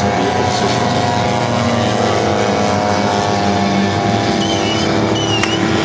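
RC model aircraft engines running steadily, a dense, even engine sound with no sudden change. From about four and a half seconds in, short high chirping tones repeat over it.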